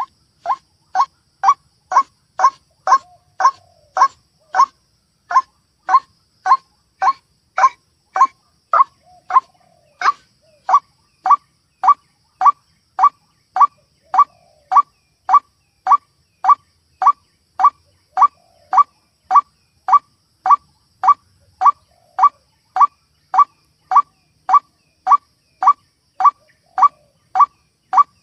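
White-breasted waterhen (ruak-ruak) calling, a lure recording: short sharp notes repeated about twice a second without let-up.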